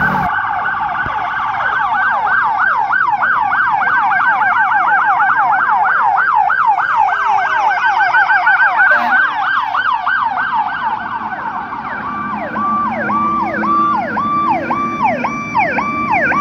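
Several fire truck electronic sirens sounding at once in a fast yelp, about three to four sweeps a second. About twelve seconds in, the sound changes to a slower, choppier siren pattern of about two cycles a second.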